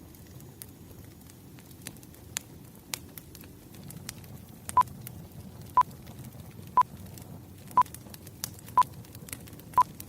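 Wood fire crackling with scattered sharp pops. About halfway in, a timer starts beeping: a short, high single-pitched beep once a second.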